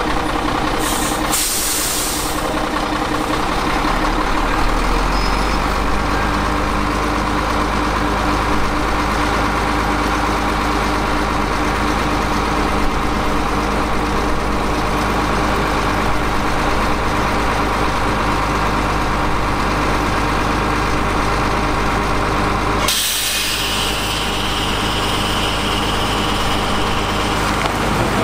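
Heavy diesel dump truck engine running steadily, settling into a deeper, heavier note about four to six seconds in. Near the end the engine note cuts off suddenly and a steady hissing noise takes over.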